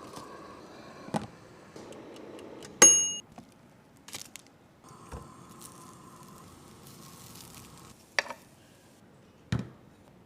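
Scattered knocks and clinks of kitchenware, the loudest a sharp ringing clink about three seconds in.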